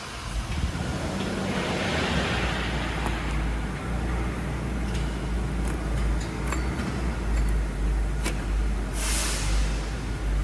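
Toyota 2AR-FE 2.5-litre four-cylinder engine running with a steady low rumble, the front-of-engine noise that the mechanic traces to a faulty water pump. A brief hiss comes about nine seconds in.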